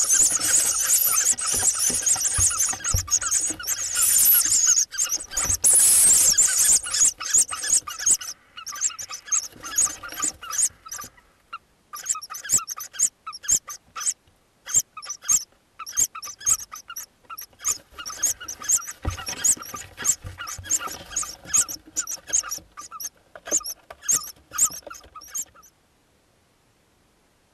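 Hoopoe nestlings calling in a nest box with high, noisy squealing calls. A dense, continuous chorus in the first eight seconds breaks up into rapid short calls, which stop suddenly near the end.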